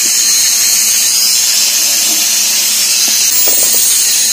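Water jetting from a hose onto the wet floor of a foundation pit, a steady hiss.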